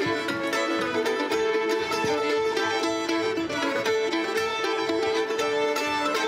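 Live contra dance band playing a fiddle tune: two fiddles carry the melody over plucked-string accompaniment, without a break.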